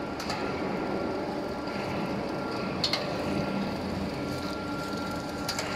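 M7150 surface grinder running under test: a steady machine hum with a faint high whine, broken by three sharp clicks, the loudest about three seconds in.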